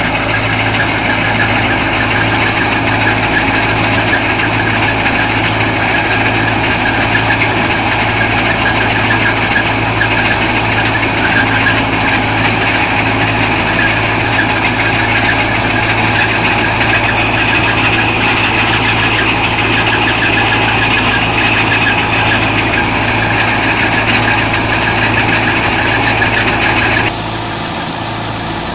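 A Belarus 510 tractor's engine runs steadily under load, driving a wheat thresher through its PTO shaft, with the thresher's drum and fan whirring as it threshes wheat. Near the end the sound drops and turns duller.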